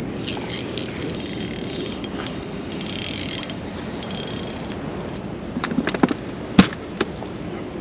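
Fishing reel being cranked steadily as a hooked fish is reeled in. A few sharp knocks come near the end, one much louder than the rest.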